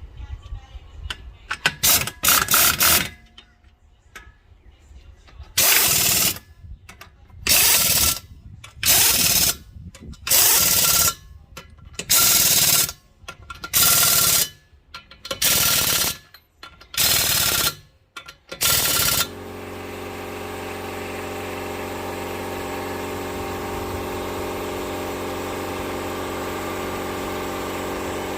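Air or battery impact wrench running lug nuts onto a wheel in short rattling bursts, about a dozen in all, the later ones coming roughly every second and a half. About twenty seconds in it gives way to a steady hum with several tones.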